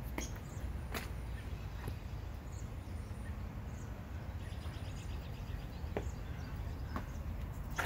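Outdoor ambience: a steady low rumble, scattered soft clicks about once a second, and a brief rapid trill about halfway through.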